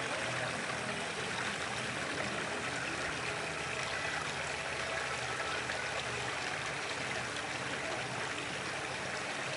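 Steady rush of river water trickling and lapping close by, with a faint low hum beneath it.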